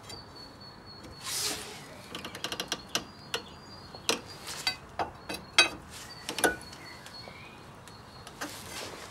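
Metal pry bar levering against a disc brake caliper to press the caliper piston back: a brief scrape, then a scattered run of sharp metallic clicks and knocks.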